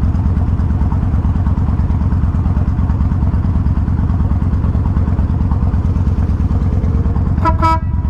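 2000 Kawasaki Vulcan 1500 Classic's V-twin engine idling with a steady low pulse. Near the end, a brief beep of two short notes.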